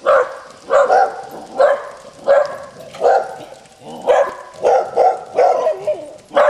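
Dogs barking repeatedly behind a gate, about ten loud barks in quick succession: alert barking at a stranger passing by.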